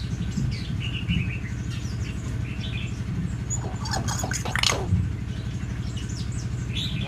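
Myna birds chirping and whistling in short calls, with a louder cluster of sweeping calls about four seconds in. A steady low engine hum runs underneath.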